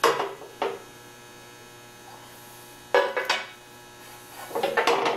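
Sharp metal knocks and clanks as pieces are set and shifted on the steel bed of a 25-ton hydraulic shop press: two at the start, two about three seconds in, and a quick cluster near the end. A steady electrical hum runs underneath.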